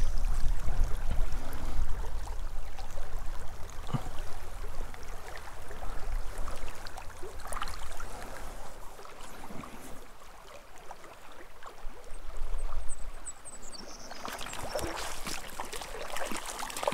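Shallow mountain creek running over rocks, a steady rush of water with occasional light splashes.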